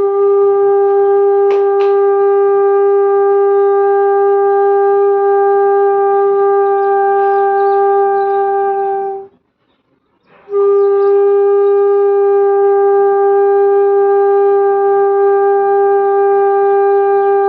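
Bansuri (bamboo flute) playing a long held note of Sa as a warm-up exercise, steady in pitch. It is held for about nine seconds, breaks for a breath, then comes back at the same pitch for about seven more seconds.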